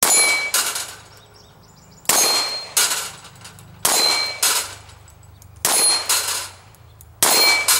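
Five handgun shots at steel plates, one about every 1.8 seconds. Each shot rings the steel with a bright ding and is followed about half a second later by a second loud bang.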